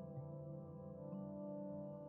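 Soft ambient background music with held tones and slow note changes.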